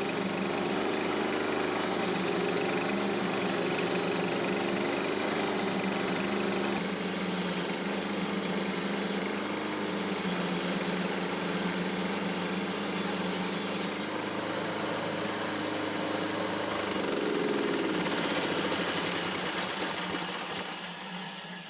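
Small gasoline engine of an old Harbor Freight bandsaw sawmill running steadily, its tone shifting slightly about a third of the way in and wavering briefly later, then fading away at the end.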